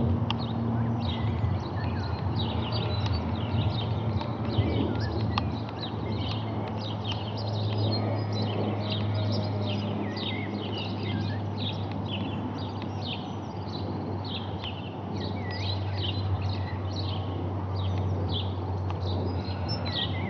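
Small birds chirping and twittering rapidly and continuously, over a low steady rumble.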